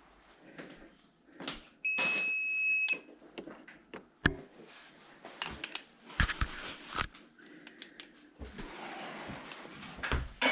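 A single electronic beep, one steady high tone lasting about a second, about two seconds in, among scattered clicks and knocks of things being handled.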